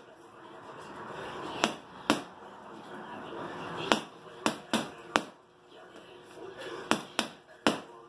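Gloved punches smacking a water-filled Aqua punching bag: about nine sharp hits, a pair early on and then quick runs of three.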